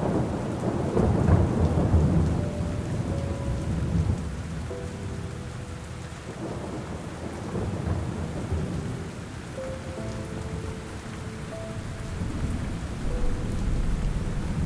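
Thunderstorm ambience: steady rain with low rolling thunder that swells about a second in and again near the end.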